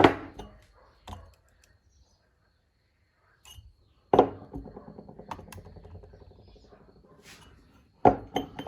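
Small steel engine parts, pushrods and rocker arms, being handled and set down for weighing, with sharp metallic clinks. One hit about four seconds in rings on for several seconds as it fades, and a few quick clinks come near the end.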